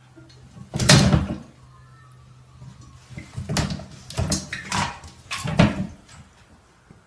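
A cat scrambling on a plastic toilet seat and bowl: one loud bump about a second in, then a run of four or five knocks and bumps as it climbs out and jumps down.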